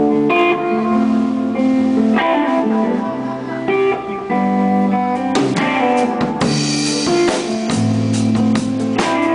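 Live rock band playing: electric guitar and bass chords ringing out, with the drum kit coming in about halfway through with cymbal crashes.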